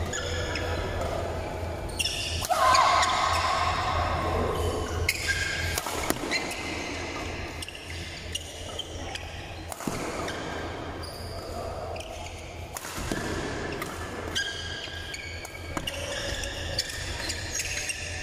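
Badminton rally in a large hall: rackets striking the shuttlecock again and again with sharp cracks, mixed with the squeak of shoes on the court floor.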